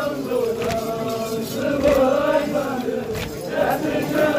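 A large crowd of male Shia mourners chanting a Muharram lament together, many voices on a slow, wavering tune, with a repeated thump about every half second to second from hands striking chests in matam.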